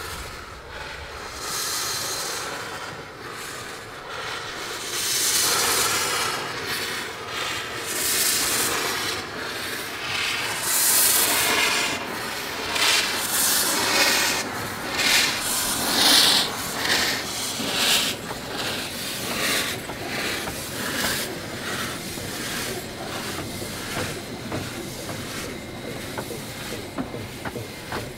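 15-inch-gauge steam locomotive moving off slowly with its cylinder drain cocks open, giving a run of hissing steam chuffs about a second apart that come closer together later on.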